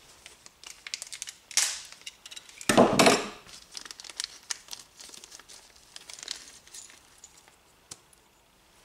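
Small clear plastic parts bag crinkling as it is handled and opened, loudest in two bursts about one and a half and three seconds in, then lighter rustling and small clicks.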